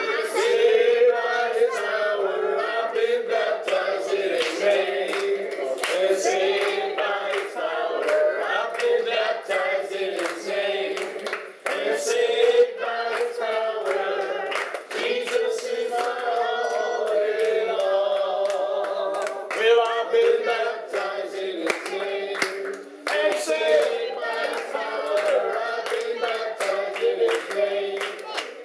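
Congregation singing together, with hands clapping along throughout.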